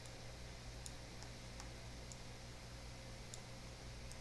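A few faint computer mouse clicks, irregularly spaced, over a steady low hum.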